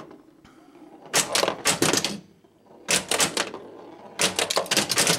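1981 Bally Medusa pinball machine being played with its soundboard dead, so only the mechanical action is heard: solenoid-driven playfield parts clacking in quick clusters of sharp strikes, the first about a second in, another around three seconds, and a last run near the end.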